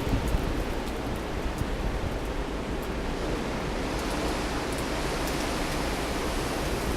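Blizzard wind blowing steadily, with a low rumble of wind on the microphone.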